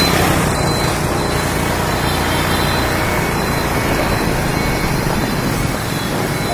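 Steady, loud traffic noise of a busy road, with short faint tones now and then like distant horns.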